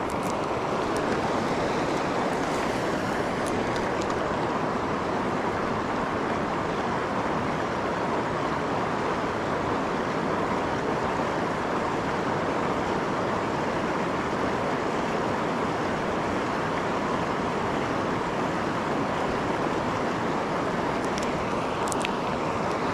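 River rapids rushing: a steady, unbroken roar of fast-moving water.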